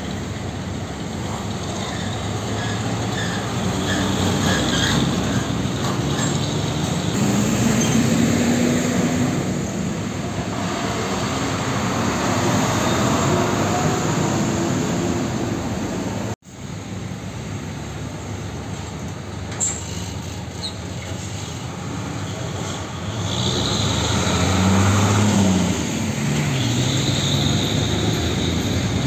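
Heavy diesel trucks driving slowly past over steady traffic noise. An engine note rises as a truck pulls away about eight seconds in, and another truck's engine revs up and down near the end.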